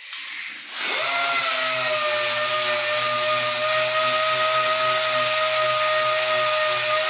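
Pneumatic dual-action (DA) sander with 800-grit paper sanding a primed steel van body panel. It starts with a short hiss of air, then spins up about a second in and runs steadily: a high whine over a loud rushing hiss.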